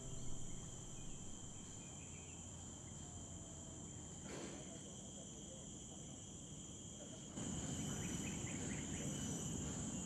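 Insects in tropical forest droning steadily in several high-pitched tones. About seven seconds in, a low rumbling noise grows louder beneath them.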